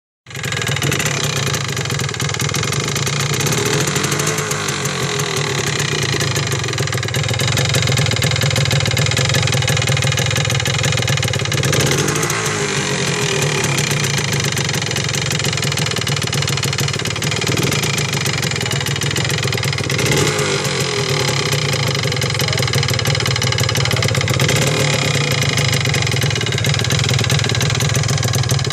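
1979 Yamaha DT250 enduro's single-cylinder two-stroke engine running steadily near idle, blipped up in revs and back a few times. The owner takes the ugly noise it makes for a possible engine knock, alongside a loss of power and stalling.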